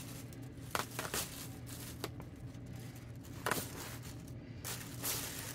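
Plastic bag and damp paper wrapping rustling and crinkling in short, scattered bursts as they are pulled open by hand.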